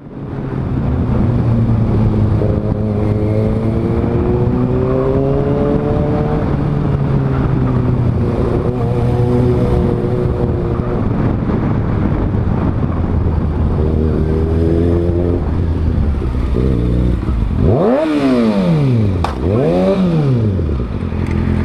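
Motorcycle engine running under way, its pitch rising and falling with the throttle. Near the end it revs twice in quick succession, each rev climbing and dropping back.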